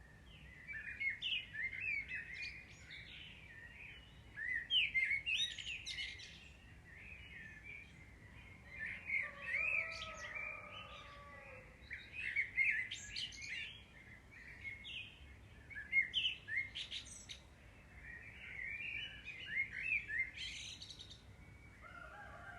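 Birdsong: several birds chirping and twittering in quick, repeated bursts.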